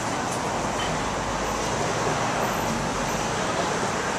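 Steady city street traffic noise: a continuous even rush of passing vehicles.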